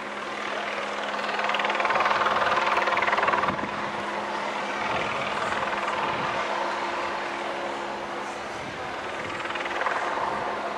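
Aerospatiale AS355N Twin Ecureuil helicopter flying low and close: twin-turbine whine and hiss with the steady beat of the main rotor. Loudest in the first few seconds, it drops sharply about three and a half seconds in and swells again near the end.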